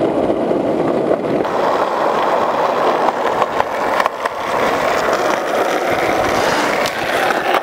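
BMX bike tyres rolling over rough pavement: a steady rolling rumble, with a few light knocks from the bike.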